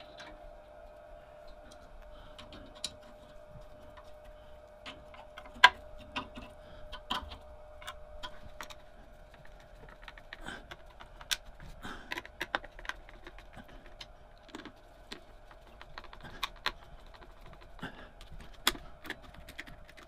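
Irregular small clicks, taps and clinks of a screwdriver and screws as a plastic switch box is fitted to a metal drill press head, the sharpest click about five and a half seconds in. A faint steady hum runs underneath.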